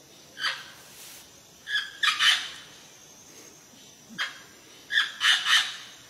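Green parrot calling in loud, harsh squawks: a single squawk, then a quick cluster of several, and the same pattern again about halfway through.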